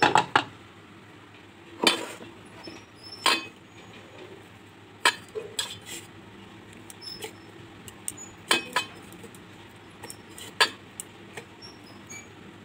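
Stainless steel bowls clinking and knocking now and then as food is scooped by hand from one bowl into another and mixed, with about eight sharp knocks spaced irregularly.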